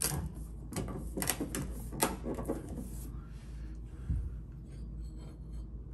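Shower valve faceplate being handled and fitted back over the mixing valve: a run of sharp clicks and taps in the first three seconds, then a few faint ticks.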